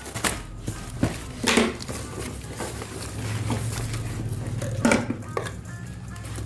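Background music, with a few short knocks and rustles from the cardboard and plastic packaging of a parcel being handled and opened.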